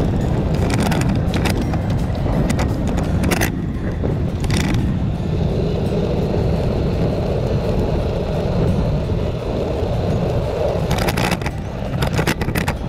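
Steady wind rush on the microphone and tyre rumble from a bicycle rolling along a paved path. Short clattering rattles come as it goes over bumps, about a second in, around four seconds in, and again near the end.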